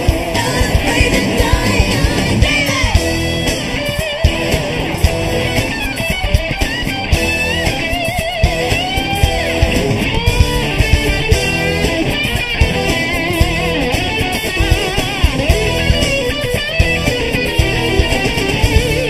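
Live rock band playing: an electric guitar plays a lead line of bent, wavering notes over a steady drum beat and bass.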